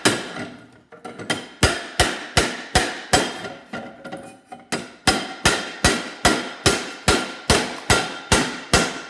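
Repeated hammer blows on a metal vacuum cleaner motor clamped in a bench vise, knocking its inner part loose. The strikes come about three a second, each with a short ring, with a pause of about a second and a half in the middle.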